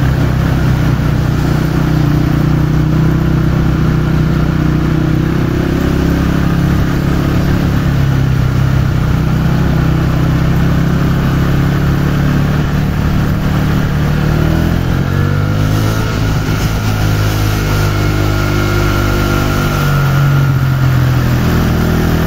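Honda motorcycle engine running under way, its pitch dipping about two-thirds of the way through and rising again near the end, over a steady hiss of tyres throwing water on a flooded road.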